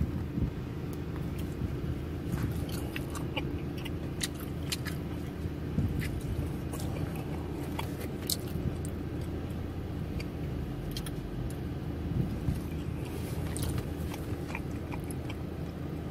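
Steady low hum of an idling car, with scattered light clicks and crackles throughout.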